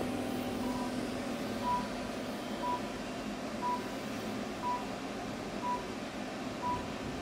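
Therapy laser unit beeping once a second with short, single-pitched beeps while the laser is firing, over a steady low hum.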